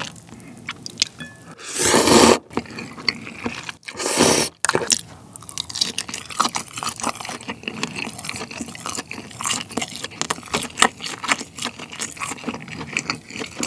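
Two loud slurps of ramen noodles, about two and four seconds in, followed by close-miked chewing with many small wet clicking mouth sounds.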